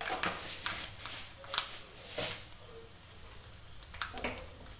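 Hot coconut oil crackling in an iron kadai: scattered sharp pops, several in the first two seconds and another cluster about four seconds in.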